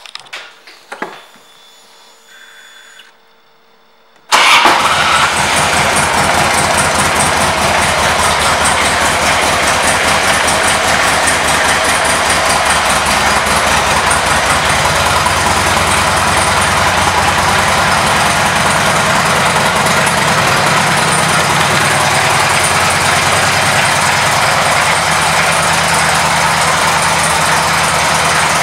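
2002 Harley-Davidson Electra Glide Ultra Classic's Twin Cam 88 V-twin engine: a few small clicks, then about four seconds in the engine starts with a sudden loud burst and settles into a steady idle.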